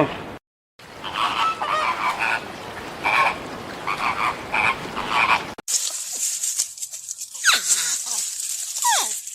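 Animal calls from two spliced clips. First comes a run of short repeated calls. After a sudden cut comes a high steady hiss with two quick falling whistles.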